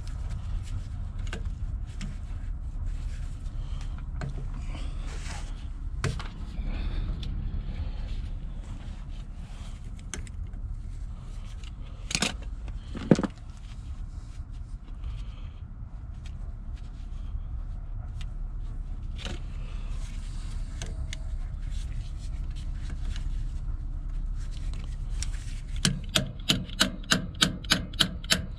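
Hand work on metal parts: scattered clanks and knocks over a steady low rumble, the loudest knock about halfway through. Near the end comes a quick, even run of about a dozen sharp clicks, about four a second.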